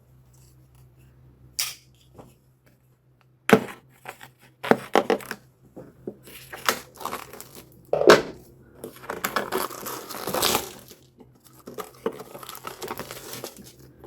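Packaging being torn open and crumpled by hand in irregular rustling, crinkling bursts, with a couple of sharp knocks.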